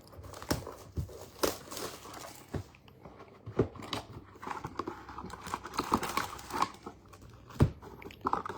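Trading card packaging being torn open and crinkled, with a scatter of sharp clicks and taps as a new box of football cards is opened.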